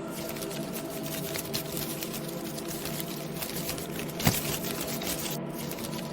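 Steady humming drone with a constant crackling, pattering texture over it, and one sharp knock a little past four seconds in.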